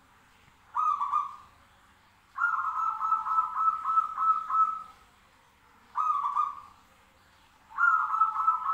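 Zebra dove (perkutut) cooing song: four stuttering, pulsed phrases of coos at one steady pitch, two short and two longer ones, with short pauses between.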